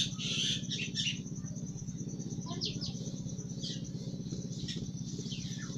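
Marker pen squeaking on a whiteboard in short strokes, a cluster in the first second and a few single strokes later. Under it runs a steady low hum and a continuous high-pitched pulsing trill.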